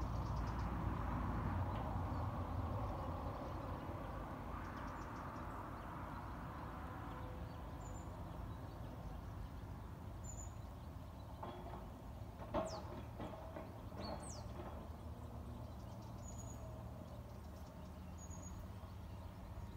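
Outdoor pond-side ambience: a steady low rumble that slowly fades, with a few short high bird chirps and two quick sweeping whistle-like bird calls a little past the middle.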